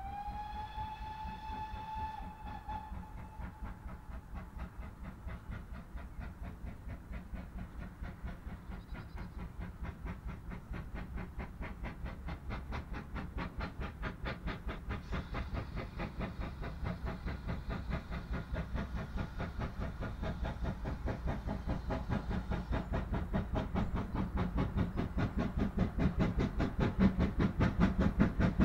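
Great Western 2-6-0 steam locomotive 9351 sounds its whistle once, a slightly rising note held for about three seconds. Its regular chimney exhaust beats then grow steadily louder as the locomotive approaches under steam.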